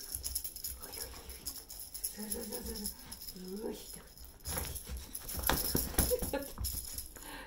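Border collie growling in a tug-of-war over a plush toy: two short low growls. About halfway through comes the loudest part, a quick rattling, rustling scuffle as the dog shakes and thrashes the toy.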